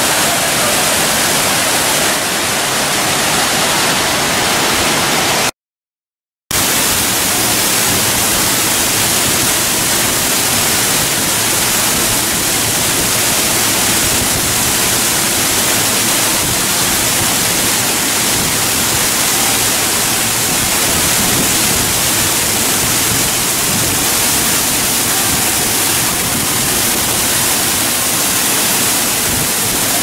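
Waterfall plunging into a pool: a loud, steady rush of falling water. It cuts out to a second of silence about five and a half seconds in, then resumes.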